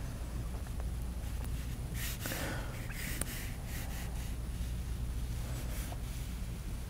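Low steady room hum with two short, soft breaths about two and three seconds in.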